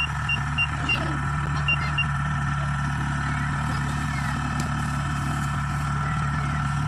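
Kubota Harvest King 2 crawler combine harvester's engine running steadily, with a thin whine over its low hum. A high beeper sounds about three times a second until about a second in, then twice more near two seconds.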